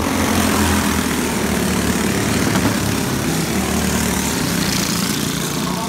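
Several go-kart engines running hard as racing karts pass close by: a steady, rasping engine drone.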